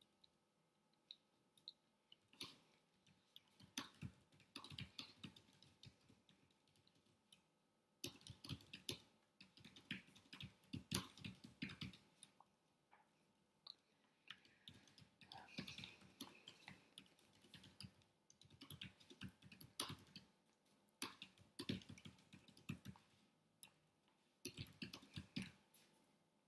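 Faint, irregular clicks and taps in bursts with short quiet gaps: hands striking and brushing against each other during signing, with metal bracelets, a watch and rings knocking.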